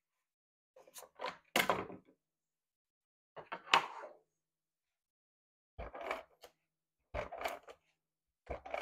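Cardstock and photo pieces being handled and set down on a craft mat: five short bursts of paper rustling and light tapping with silence between.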